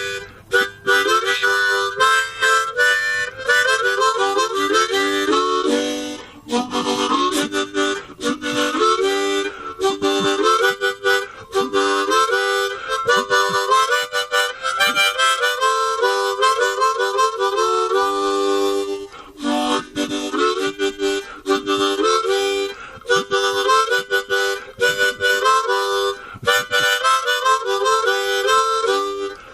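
Background music: a quick-moving melody of changing notes, with short breaks about six and nineteen seconds in.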